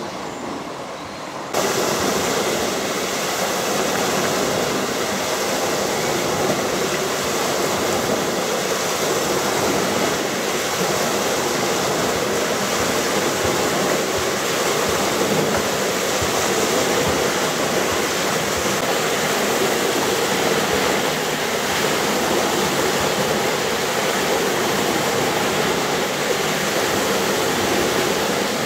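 Steady rush and splash of water falling through and around a mill water wheel. It starts suddenly about a second and a half in, after a quieter outdoor background.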